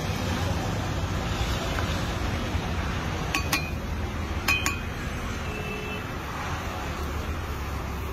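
Steady street background rumble, with two quick pairs of metal utensil clinks that ring briefly, a little past the middle.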